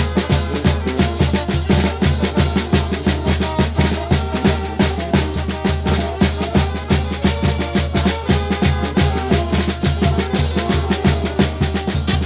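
Mexican banda-style band music: a steady, evenly pulsing bass line with regular drum strokes under the melody.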